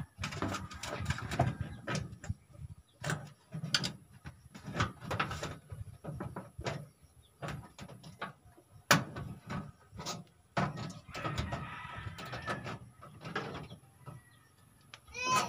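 Pliers twisting steel tie wire around reinforcing-bar crossings: irregular metal clicks, snaps and scraping of wire against the bars.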